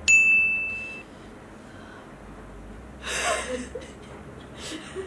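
A single high electronic ding that fades out over about a second, then a short breathy laugh about three seconds in.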